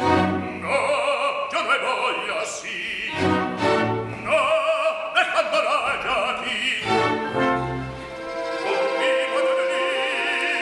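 Male opera singer singing a dramatic line with wide vibrato over an orchestra. The music comes in suddenly and loud, with heavy low orchestral chords at the start, again about three seconds in and again about seven seconds in.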